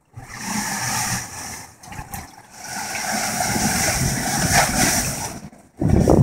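Sea water surging and sloshing in a narrow hole in the rock, a rushing noise that swells through the middle and drops away near the end.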